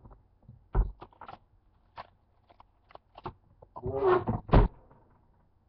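Scattered clicks and knocks of movement and handling close to the microphone, with a dull thump a little under a second in. Around four seconds in comes a short wordless vocal sound from the man, ending in another thump.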